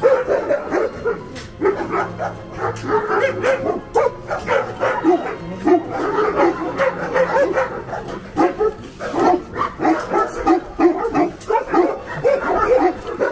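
Many large dogs barking, yipping and whining excitedly all at once, crowding a metal fence to greet their returning keeper.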